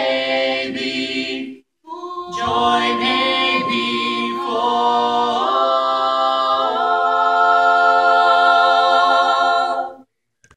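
A gospel vocal quartet of mixed men's and women's voices singing unaccompanied in close harmony. After a brief gap near the start, the song closes on a long held final chord that stops just before the end.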